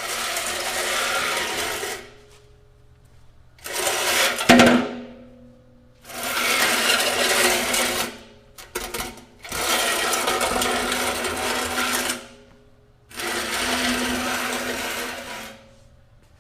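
A box dragged across a floor, scraping in five separate pushes of about two seconds each with pauses between, and one hard knock about four and a half seconds in.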